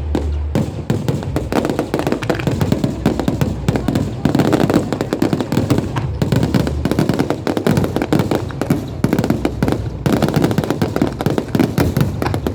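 Fireworks going off in a dense, rapid barrage: many sharp bangs and crackles every second, with no break.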